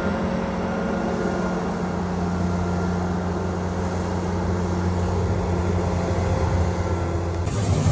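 Farm machinery engine running steadily with a low hum. The sound changes abruptly near the end to a rougher engine sound.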